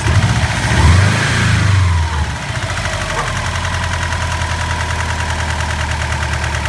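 An engine idling, revved once about half a second in, its pitch rising and falling back over a second or so before it settles to a steady idle.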